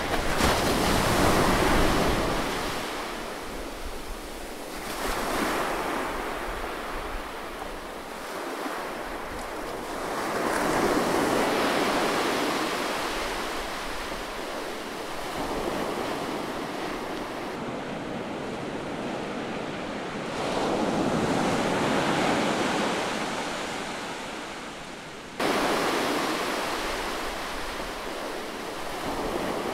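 Heavy ocean surf breaking and washing through, the roar swelling and easing every five seconds or so. About 25 seconds in it jumps suddenly louder.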